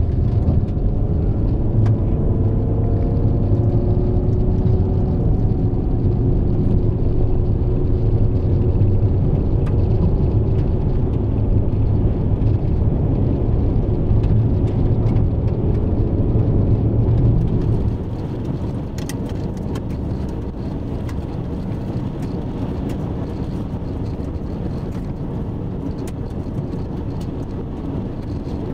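Vehicle driving on a gravel road: a steady low rumble of engine and tyres on gravel, with faint whining tones over it. About two-thirds of the way through the sound drops suddenly to a quieter, rougher rumble with scattered clicks.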